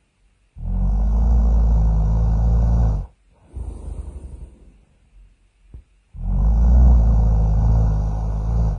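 Loud cartoon snoring: two long, rumbling snores about three seconds apart, with a quieter rasping breath out between them.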